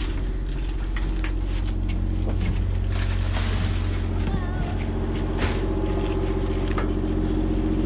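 Steady engine hum of an idling bus, with scattered knocks and scuffs as people step down from it and walk on gravel carrying cases of bottled water.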